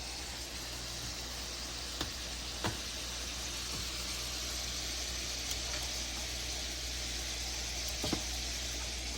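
Meat sizzling in a cast iron skillet, a steady hiss, with a few light clicks of a utensil against the pan, twice around two seconds in and once near the end.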